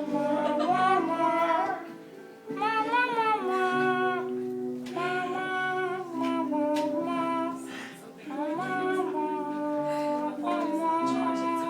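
A voice singing a slow melody in long held phrases over guitar accompaniment, with short breaks between the phrases.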